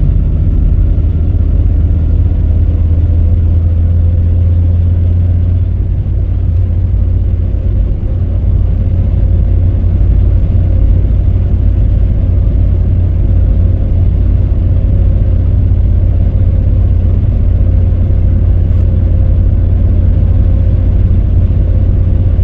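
Cabin noise inside a Toyota Tercel wagon driving on the road: a steady, loud low rumble of road and engine noise with a faint steady whine above it.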